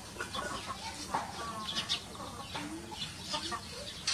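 Chickens clucking: a quick, irregular run of short calls.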